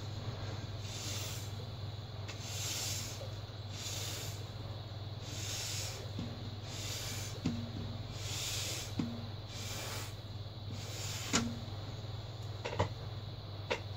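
Breath blown through a drinking straw in repeated puffs, about one every second and a half, pushing wet acrylic pouring paint across a canvas. A few small clicks come in the second half, over a steady low hum.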